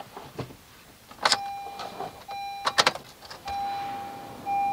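Keys rattling and clicking as the key goes into a 2015 Honda Accord's ignition and is turned, with two sharp clicks. The car's electronic warning chime beeps in short pulses, then holds longer near the end.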